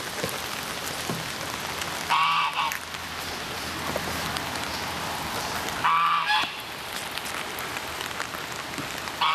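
Domestic geese honking: two loud calls, about two and six seconds in, each lasting around half a second, with another starting right at the end. Under them runs a steady hiss of rain falling on the wet, puddled ground.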